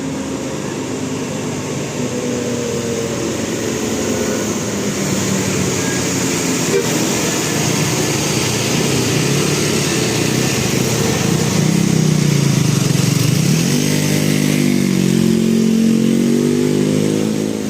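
Bus 'telolet basuri' multi-tone air horn playing a melody of stepped tones in the last few seconds, over steady traffic and engine noise.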